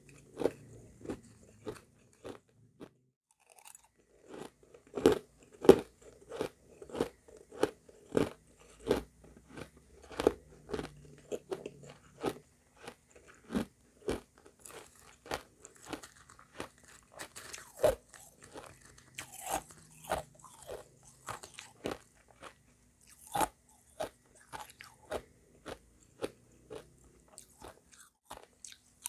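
A person biting and chewing refrozen shaved ice mixed with crushed ice: hard, crisp crunches at about two a second, with a short pause about three seconds in.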